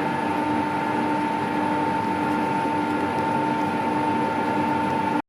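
Colchester Triumph 2000 lathe running steadily under power, a steady whine with a lower hum over mechanical noise. It cuts off suddenly just before the end.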